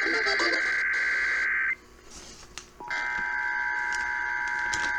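Emergency Alert System tones over the radio: a long burst of the SAME digital header, a warbling data screech, ends under a fading voice. After a second's pause, another header burst starts about three seconds in, together with the steady two-tone EAS attention signal.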